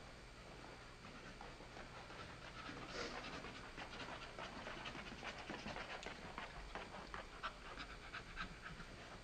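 American Staffordshire Terrier panting quickly and steadily, the breaths coming in a fast, even rhythm that grows plainer about three seconds in.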